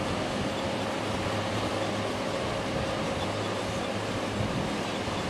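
Loaded container wagons of a long freight train rolling past on the rails: a steady, even rolling noise with a faint steady hum.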